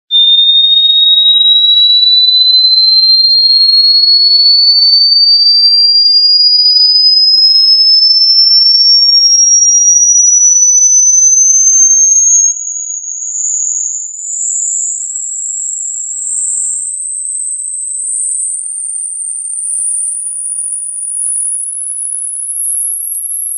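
Hearing-test frequency sweep: a single pure electronic tone climbing slowly from a high pitch to a very high one. About halfway through it drops in loudness and from there rises in small steps rather than a smooth glide.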